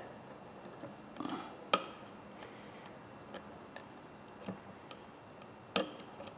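Light metallic clicks and taps from a pair of diagonal pliers being reassembled by hand, as a stiff, tensioned return spring is worked into place. There are scattered small ticks, with a sharper click a little under two seconds in and another near the end.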